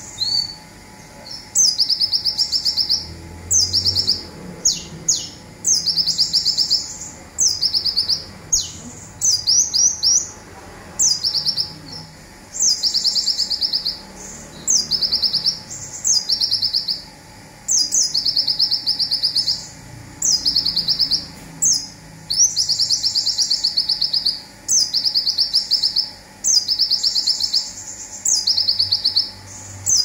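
Male konin (kolibri ninja sunbird) singing a string of high, fast-trilled bursts about a second long, one every one and a half to two seconds, with a few quick sweeping notes among them. These are the 'zipper' shots (tembakan) that songbird keepers use as training song.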